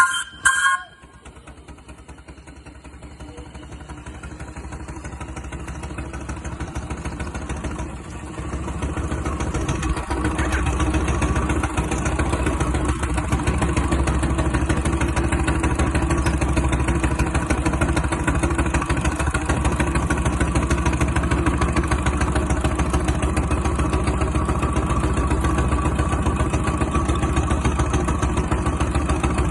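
A small engine running steadily with a fast even beat, growing louder over the first ten seconds or so and then holding. It is preceded at the very start by a brief loud, high-pitched sound.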